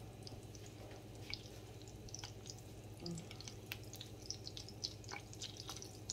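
Butter melting into olive oil in a hot pan, giving faint, scattered crackles and pops that come more often near the end, over a low steady hum.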